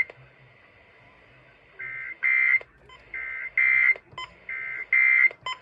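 Emergency Alert System digital data bursts (SAME code) on AM radio: three short bursts of rapid two-tone warbling, each about a second and a half apart. This is the end-of-message code that closes a required weekly test.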